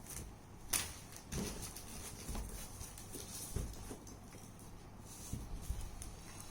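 Irregular knocks, clicks and soft thumps of parts and packaging being handled, with one sharp click about a second in.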